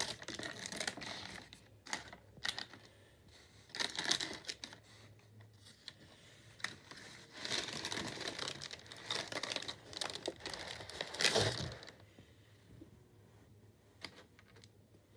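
Shoebox tissue paper crinkling and rustling in irregular bursts as it is folded back and a sneaker is lifted out. The handling turns quieter about twelve seconds in.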